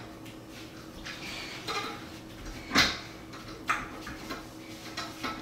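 Portable home gymnastics bar knocking and rattling under a gymnast in grips as she swings and shifts on the rail: a few irregular sharp knocks, the loudest about three seconds in.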